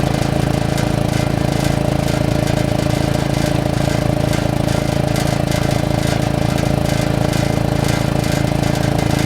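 1943 Westinghouse portable air compressor running, its electric motor driving the pump with a steady, fast-pulsing hum as it builds pressure.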